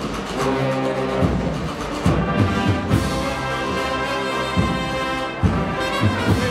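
Brass band playing a slow Holy Week processional march, brass chords over repeated low drum beats.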